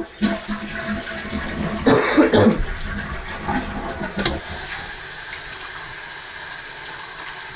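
A person coughing and clearing their throat several times in the first few seconds, followed by a steady hiss.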